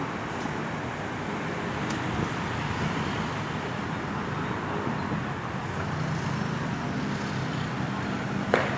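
Steady road traffic noise, with the low hum of a vehicle engine coming through more clearly in the second half. A single short, sharp sound cuts in near the end.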